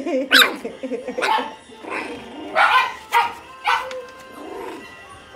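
Goldendoodle puppies yapping, about five short, sharp barks spread across the few seconds, with lower wavering puppy whines in the first couple of seconds.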